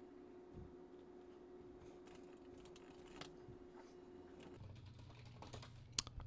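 Faint typing on a computer keyboard: scattered soft key clicks, with a sharper click near the end. A faint steady hum lies underneath.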